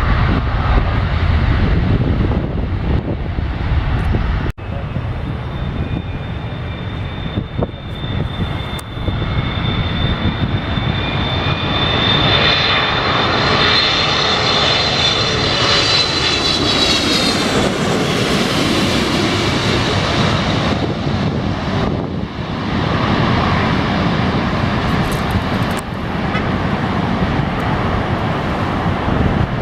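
Jet airliner passing low overhead: a loud, steady engine roar with a high fan whine that builds, peaks a little past halfway, then drops in pitch as the plane goes by.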